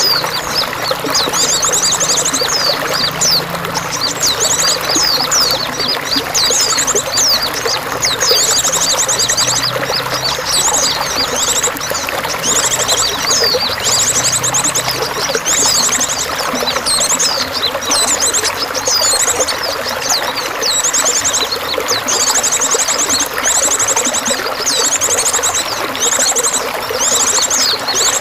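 Water pouring and trickling steadily, with small songbirds chirping over it and repeating a short, rapid trill every second or two.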